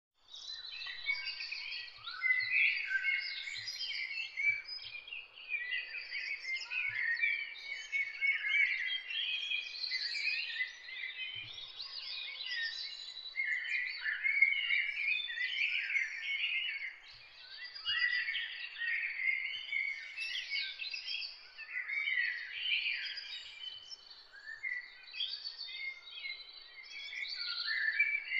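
A dense chorus of small birds chirping and twittering without a break, many calls overlapping.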